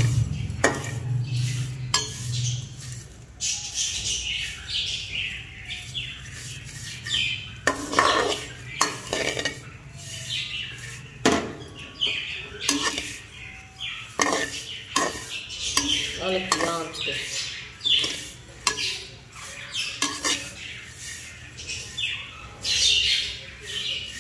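A spoon stirring vermicelli as it fries in ghee in a kadhai, scraping and clinking against the pan again and again at an uneven pace.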